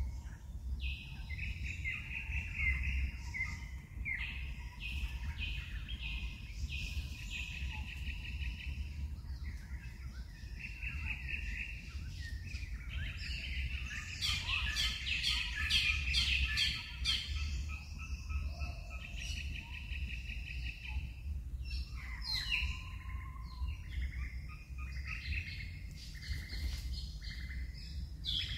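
Wild birds chirping and calling in repeated short phrases, with a denser burst of rapid, higher calls about halfway through. A steady low rumble runs underneath.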